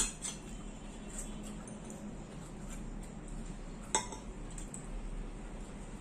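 Forks clinking against a bowl and plates during a meal: a sharp clink at the start, another about four seconds in, and a few lighter taps between.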